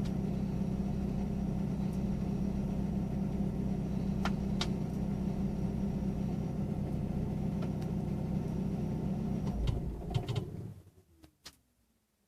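Eagle Talon's four-cylinder engine idling steadily, then stumbling with a few sputters and dying about ten and a half seconds in, leaving near silence. This is the random shutdown that the owner suspects a bad ECU of causing.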